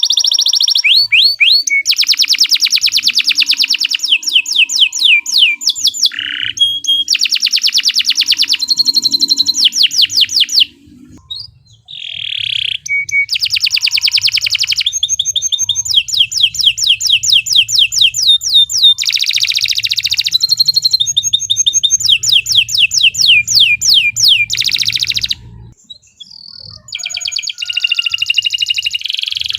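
Domestic canary singing a long song of rapid trills and rolls, fast runs of repeated high notes and sweeping chirps. The song breaks off briefly twice, about a third of the way in and near the end.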